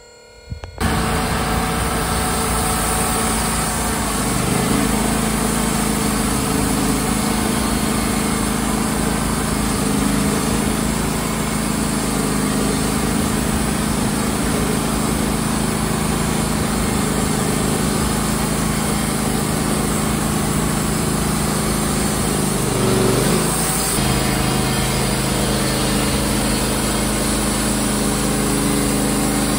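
Wood-Mizer LT35 hydraulic sawmill running, its engine driving the band blade through southern yellow pine. The steady engine sound starts abruptly about a second in, and its note shifts a couple of times.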